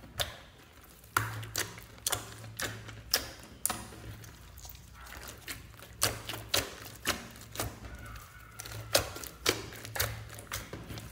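Hands squeezing and kneading a large lump of glittery slime, giving an irregular string of sharp wet clicks and pops, several a second.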